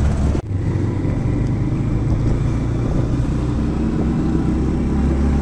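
A motor vehicle's engine and road noise while driving: a steady low rumble, with a brief sharp dip about half a second in.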